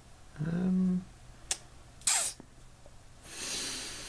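A person's mouth and breath noises while thinking: a short hummed "mm" about half a second in, a click, a sharp sniff-like puff of air about two seconds in, then a long breathy exhale that slowly fades.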